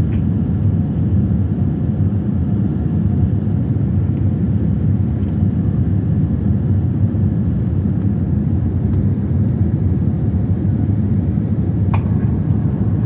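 Steady low roar inside a jet airliner's passenger cabin, the engines and rushing air heard together as the aircraft climbs.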